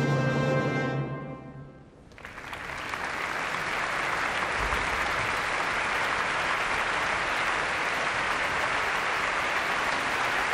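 Music with long held notes fades out about two seconds in, and a large concert-hall audience then applauds steadily.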